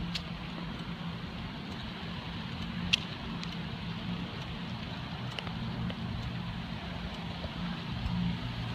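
Car running, a steady low engine and road hum with a few faint clicks, the sharpest about three seconds in.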